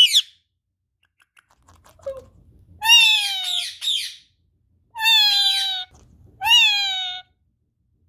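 Indian ringneck parakeet calling: a brief shrill call at the start, then three loud, pitched calls of about a second each, near three, five and six and a half seconds in, each sliding down in pitch.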